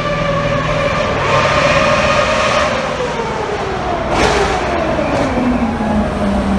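Red Bull RB7 Formula One car's Renault V8 running in the distance. Its engine note holds steady at first, then falls in pitch over the last few seconds as the revs drop. There is a short burst of noise about four seconds in.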